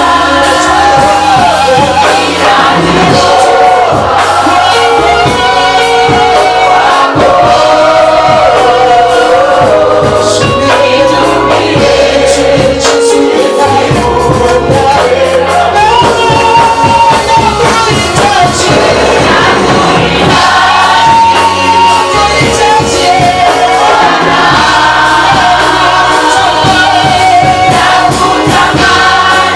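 Choir singing gospel worship music over instrumental accompaniment, with a steady beat.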